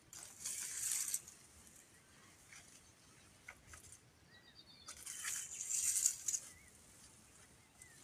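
Dry brushwood rustling as a dry branch is pulled out of a pile, in two bursts: one about a second long near the start and a longer one about five seconds in.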